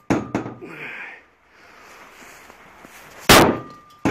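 Sledgehammer blows on a coated steel car hood: one heavy strike right at the start and a louder one about three seconds in, each followed by a smaller knock and a short metallic ring.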